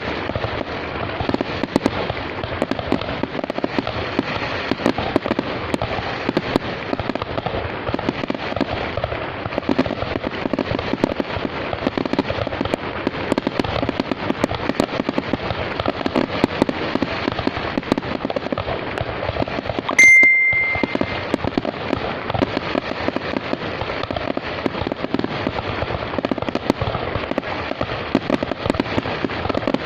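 Fireworks going off without a break: a dense, continuous crackle of many small pops. About two-thirds of the way in, a short high beep sounds for about a second over it.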